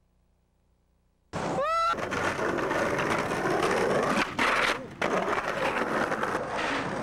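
Skateboard rolling on pavement, cutting in suddenly after about a second of near silence, with a short rising squeal just after it starts and a brief lull a little before the five-second mark.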